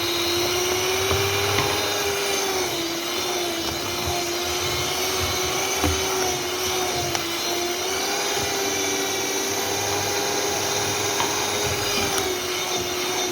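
Electric mixer running steadily, beating a thick lemon cake batter as lemon juice is worked in to loosen it; its motor hum wavers slightly in pitch.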